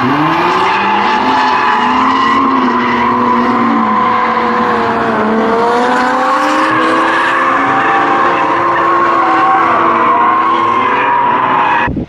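Two BMW drift cars in a tandem drift, an E30 leading: their engines are held high in the revs, the pitch wavering and dipping as the drivers work the throttle, over tyre squeal.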